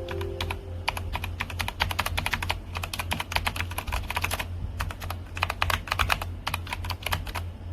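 Typing on a mechanical keyboard with Outemu Brown tactile switches: quick runs of keystrokes with brief pauses between them, over a steady low hum.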